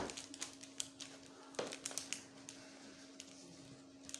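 Faint scattered taps and clicks of a boxed toy car and its packaging being handled, over a steady low hum.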